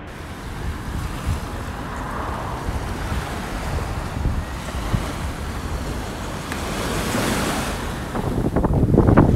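Small waves breaking and washing up on a sandy beach, with wind buffeting the microphone, strongest near the end.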